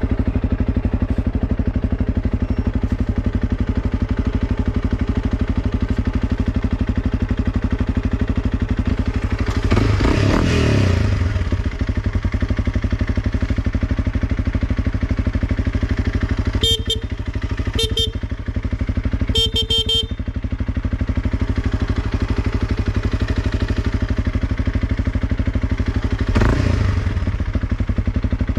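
Honda CRF300 Rally's single-cylinder engine idling with a steady pulse, revved briefly about a third of the way in and again near the end. In between, a motorcycle horn sounds three times: two short beeps and a longer one.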